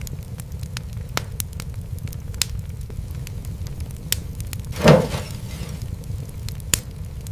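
Fireplace fire crackling over a steady low rumble, with scattered sharp pops and one louder pop with a brief hiss about five seconds in.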